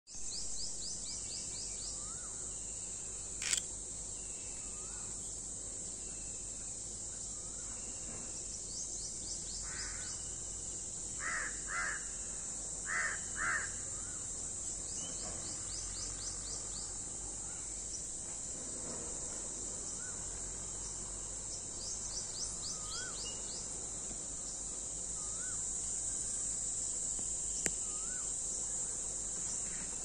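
A steady high insect drone with small birds calling over it: a short rising-and-falling whistle repeated every couple of seconds and quick runs of high chirps. About a third of the way in a crow caws five times, the loudest calls.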